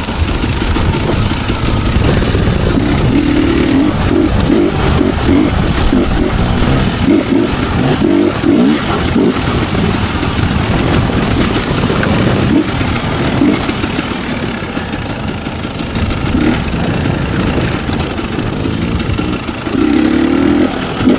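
Dirt bike engine revving up and down with the throttle while riding a rough trail. It eases off for a few seconds past the middle, then revs hard again near the end.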